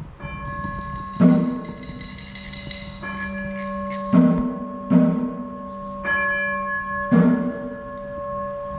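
Background music of struck bells: about five strikes, each leaving long ringing tones that overlap and fade slowly.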